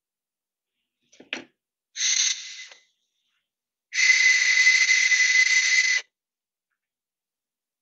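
Handmade, still-unfired clay whistle being test-blown while its edge and airway are shaped: a short breathy puff, then a steady breathy single-note whistle held for about two seconds.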